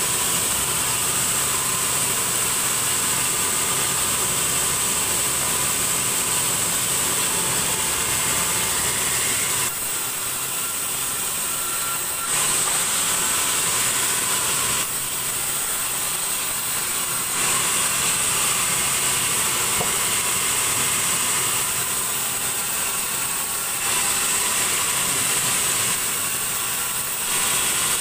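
Large sawmill band saw running and cutting through a log: a steady, loud, high-pitched machine whine with saw noise, which eases off for a couple of seconds several times in the second half as the cut changes.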